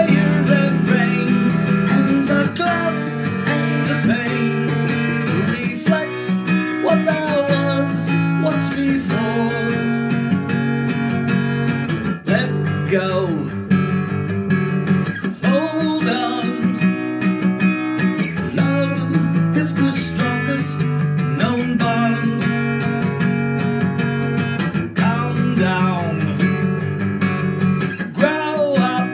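Strummed acoustic guitar with a man singing over it.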